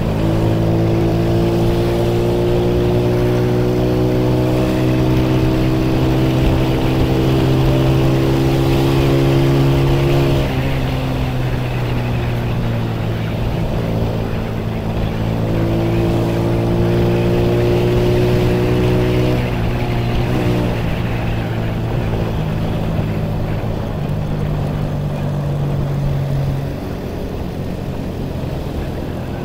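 Honda CD125 single-cylinder four-stroke motorcycle engine pulling under way. Its pitch climbs slowly for about ten seconds and drops back, climbs again and drops just before twenty seconds, then runs fairly steadily, like a bike working through its gears.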